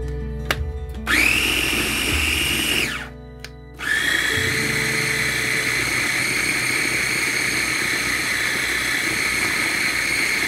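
KitchenAid mini food chopper's motor pureeing cooked sweet potato and Yukon Gold potato. It spins up with a rising whine, runs about two seconds and winds down, then after a brief pause runs steadily for about seven seconds.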